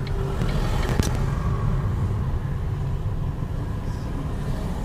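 Car engine and road rumble heard from inside the car's cabin, steady and low, with a single sharp click about a second in.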